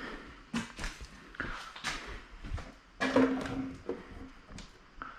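A series of light knocks and clicks of something being handled, with a short pitched squeak about three seconds in.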